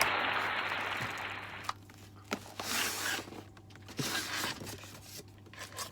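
Bubble wrap and plastic packaging being handled and pulled away: a dense crinkling rustle for the first second or so, then scattered crackles and a few sharp clicks and taps.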